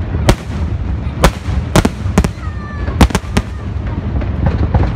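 Aerial fireworks shells bursting: about eight sharp bangs at irregular intervals, three in quick succession about three seconds in, over a steady low rumble.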